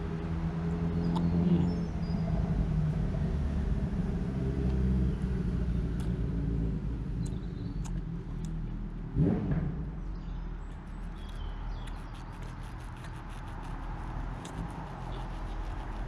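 A motor vehicle engine running steadily, stronger in the first half and fading after about ten seconds, with one brief louder surge about nine seconds in.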